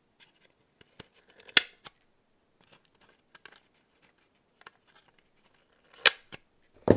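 Side cutters snipping the overlong ends off thin wooden rafter strips. Each cut is a sharp snap: one about a second and a half in and another near the end, with small clicks and taps of the tool in between.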